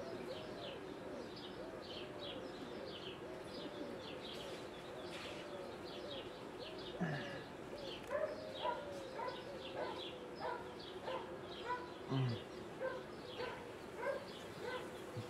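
Honeybees buzzing in a steady hum over an open hive, with single bees passing close. From about eight seconds in, an animal calls repeatedly in short notes, about one and a half a second, louder than the hum.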